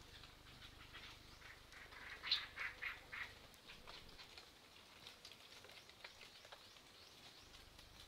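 Brown-cheeked fulvetters bathing in a shallow pool, splashing with their wings: a quick run of wet flutters about two to three seconds in, then scattered light splashes and drips.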